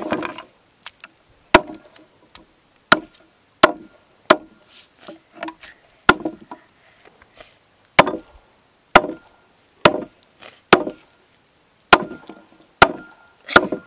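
A blade chopping down onto wood in single sharp strokes, about a dozen at uneven gaps of roughly a second.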